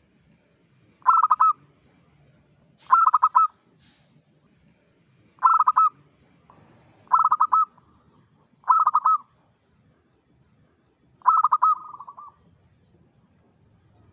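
Zebra dove (perkutut) singing: six short, rapidly pulsed coo phrases, one every one and a half to two and a half seconds, the last trailing off longer.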